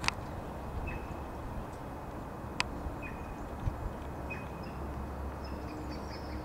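Streamside outdoor ambience: small birds call now and then with short high chirps over a steady low rumble of distant traffic. Two sharp clicks stand out, one at the very start and one about two and a half seconds in.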